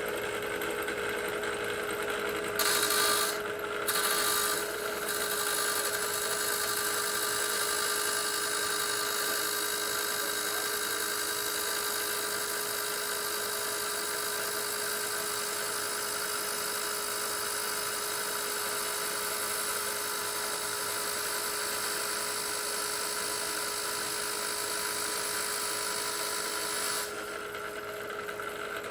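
Chop saw cutting through a metal bar: the motor runs steadily with a high grinding hiss from the blade in the metal, louder in surges a few seconds in. Near the end the cut finishes and the hiss drops away while the motor keeps running.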